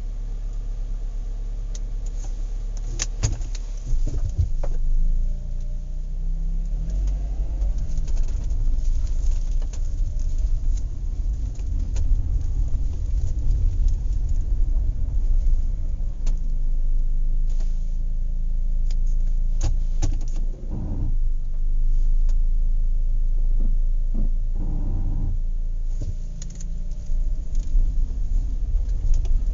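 Horse farm activity: a steady low rumble with metallic jangling and scattered knocks and clatter, and two short, louder noisy bursts in the second half.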